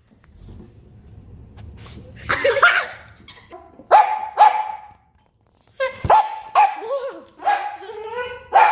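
A dog barking repeatedly: one bark about two and a half seconds in, a pair about four seconds in, then a quick run of barks from about six seconds on, some of them rising in pitch.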